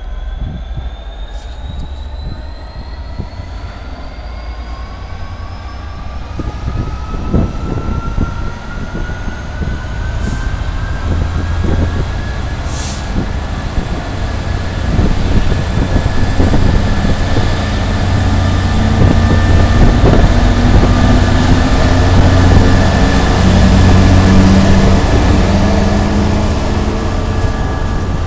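British Rail Class 66 diesel locomotive, its EMD two-stroke V12 engine working hard as it pulls away with a train of tank wagons, a whine rising slowly in pitch as it gathers speed. The sound grows steadily louder as the locomotive passes close by, then the tank wagons roll past on the rails near the end.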